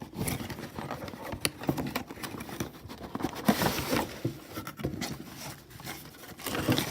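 Handling noise from unpacking: a cardboard box and its packing paper rustling and scraping, with scattered light clicks and taps as the smoke alarm is turned and slid out.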